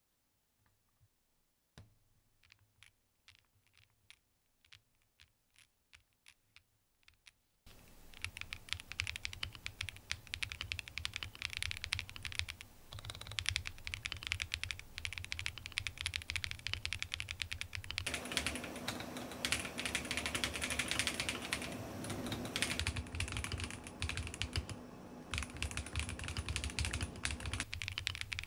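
Typing on a KBDcraft Adam mechanical keyboard with lubed linear switches (Switch S² Engine), double-shot keycaps and a case built from Lego bricks. It begins with a few separate clicks, then becomes fast continuous typing from about eight seconds in.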